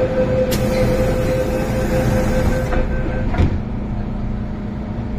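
MTR M-Train at a station platform: a steady high warning tone sounds, then stops, and the doors shut with a single thump about three and a half seconds in. A steady electrical hum from the train runs throughout.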